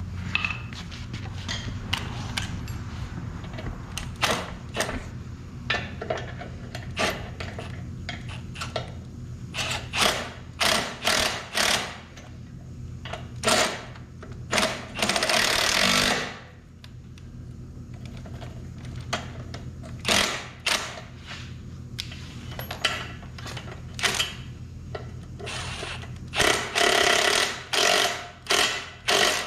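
Cordless impact wrench hammering on the bolts of a Rayco RG50 stump grinder's cutter-shaft pillar bearing, in repeated short bursts. The longest burst runs about a second and a half, around the middle. A steady low hum sounds underneath.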